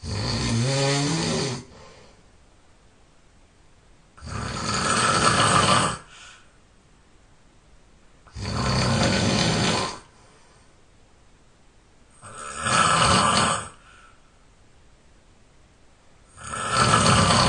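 A person snoring loudly in a steady rhythm: five snores about four seconds apart, each lasting about a second and a half, with quiet breathing gaps between.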